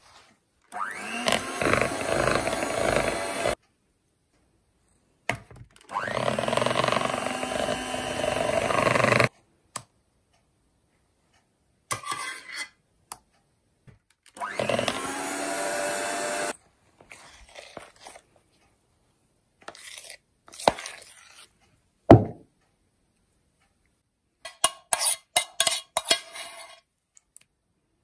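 Severin electric hand mixer with wire whisk beaters whipping buttercream, run in three bursts of a few seconds, each opening with a rising whine as the motor spins up. Near the end come a single sharp knock and a quick run of clinks.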